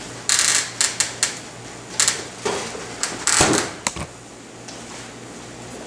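Kitchen handling noises: a run of short knocks, clicks and rustles over about four seconds, loudest a little past the three-second mark, as the chilled dough mixture is taken out of the fridge and set on the table.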